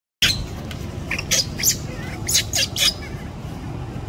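Baby macaque squealing: a run of short, sharp, high-pitched squeals packed into the first three seconds, over a steady low rumble.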